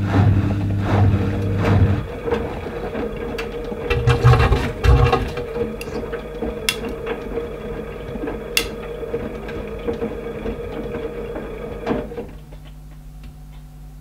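AEG 8000 Series Lavamat front-loading washing machine winding down from a spin. The loud low motor hum drops away about two seconds in, and a few seconds later come a few low thuds as the wet laundry falls inside the slowing drum. A steady whir carries on with a couple of light clicks and stops with a click near the end, leaving a quieter hum.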